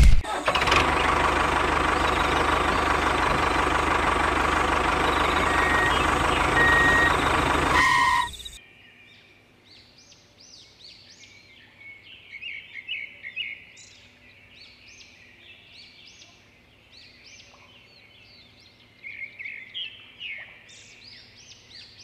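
The small electric motor of a homemade toy tractor runs with a steady, dense whirr, with two short high beeps in the middle, then cuts off suddenly about eight seconds in. After that it is quiet, with birds chirping on and off.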